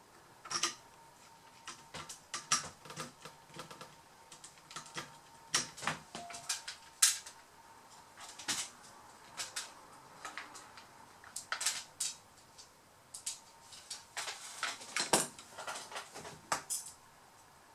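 Irregular light clicks and taps of small metal tools and laptop parts being picked up, set down and fitted while a Samsung R710 laptop motherboard is being reassembled.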